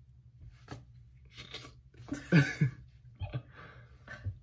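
Soft, breathy laughter: a few short bursts of giggling and stifled chuckles, the loudest about two seconds in.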